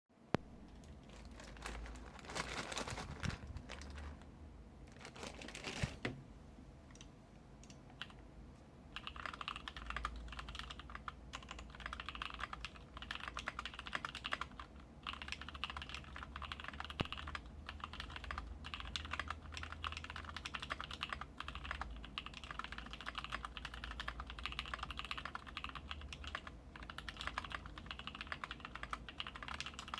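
Typing on a KBD75v2 mechanical keyboard fitted with lubed NovelKeys Cream linear switches on an aluminium plate, with PBT keycaps and no sound dampening. A few scattered sounds open it, then steady, rapid typing begins about nine seconds in.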